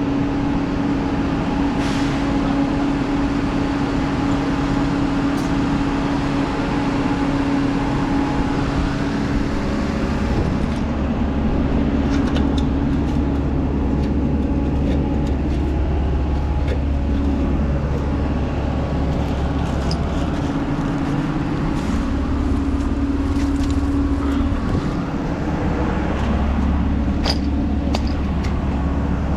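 A large engine of heavy construction equipment running steadily, with its load shifting slightly a few times. Occasional brief metallic clinks sound over it.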